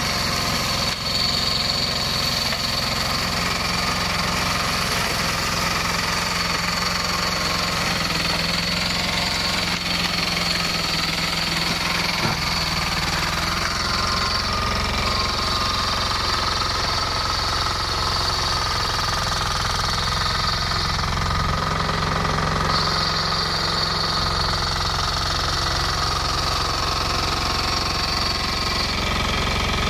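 An 18 hp diesel engine driving a flail-shaft grass mower runs steadily, with a high steady whine over the engine note that drops out for a second or two about two-thirds of the way through.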